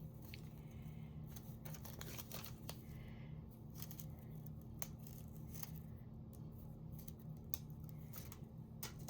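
Cardstock being handled and tucked into place on a handmade card: scattered light paper rustles and small clicks over a faint steady hum.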